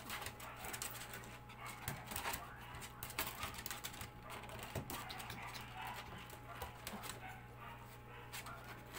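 Maltese puppy whimpering faintly while it squirms under the handler's hands, with scattered small rustles and scrapes.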